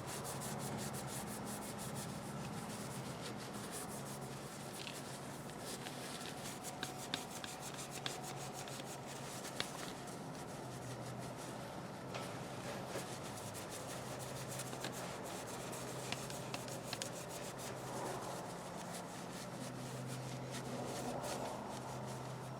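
A rag rubbing wax over a pair of steel crimpers: a steady scrubbing with a few light clicks of metal scattered through it.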